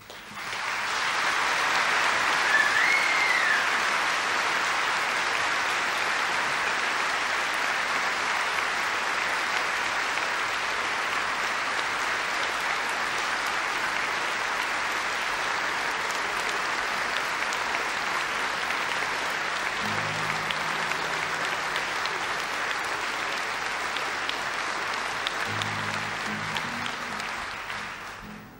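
Concert audience applauding steadily after a song, with a brief rising-and-falling whistle from the crowd about two seconds in. The applause fades out at the end, and a few low acoustic guitar notes sound under it in the last several seconds.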